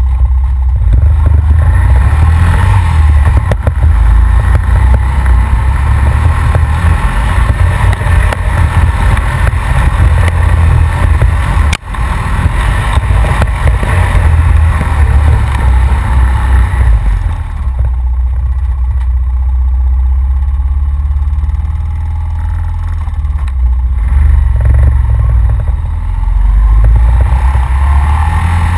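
Honda Rancher ATV engine running under throttle along a muddy trail, heard close up from the front rack with a heavy low rumble, and briefly dropping out about twelve seconds in.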